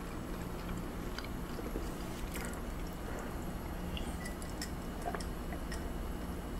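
A person chewing raw beef tartare near the microphone, then drinking from a glass mug, with a few faint clicks over a steady low background hum.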